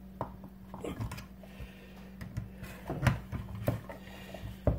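A few irregular sharp knocks of a hammer against a Grundfos circulator pump as the motor end is forced off the pump body, the loudest one near the end.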